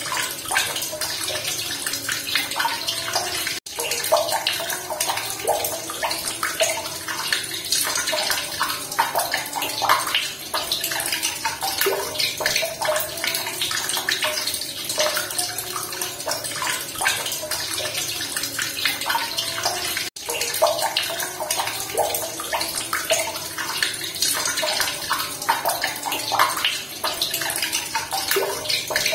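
Running water splashing and trickling steadily, like a babbling stream, with two very short cuts in the sound, a few seconds in and again about two-thirds of the way through.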